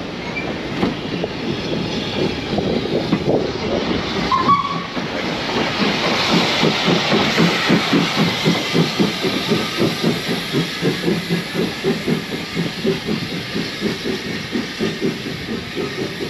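Heritage steam train running along the line, with a steady rhythmic clatter of about two to three beats a second and a hiss that swells around the middle.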